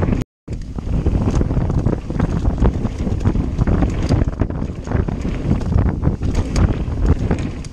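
Mountain bike riding fast down a rough dirt trail: wind buffeting the microphone over the rumble of tyres on the dirt, with frequent knocks and rattles as the bike hits bumps. The sound cuts out for a moment near the start.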